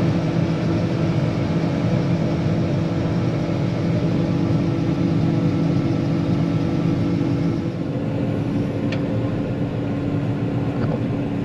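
John Deere 9500 combine's diesel engine running steadily, a constant hum whose tone changes slightly about eight seconds in.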